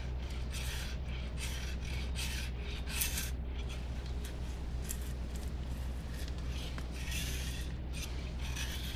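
Carving knife shaving bark off a green strawberry guava stick: a run of short scraping strokes, irregularly spaced, each a brief rasp of blade on bark.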